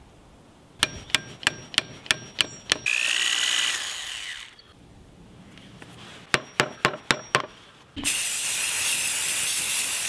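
Aerosol spray-paint can being shaken, its mixing ball rattling in two quick runs of about seven clicks each, with a hiss of about a second and a half between them. About eight seconds in, a steady spray hiss starts as the paint is sprayed.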